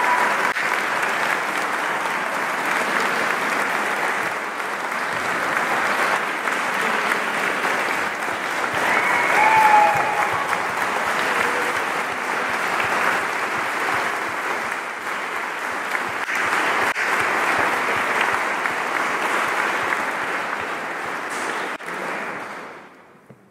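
A roomful of people applauding, with a few short shouts about ten seconds in; the clapping dies away near the end.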